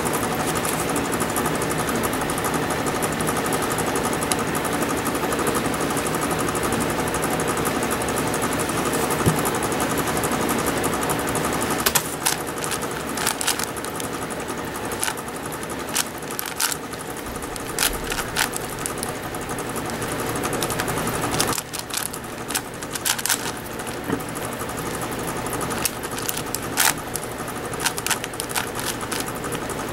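Plastic layers of a 5x5 speed cube clicking and rattling as they are turned rapidly by hand, with sharper single snaps standing out in the second half.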